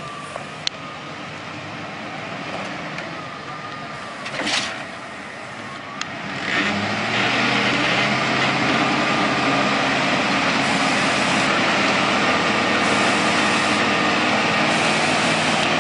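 Pickup truck doing a burnout: the engine runs at moderate speed with a short burst about four and a half seconds in, then about six seconds in it goes up to high, steady revs with a dense hiss of spinning tyres, held to the end.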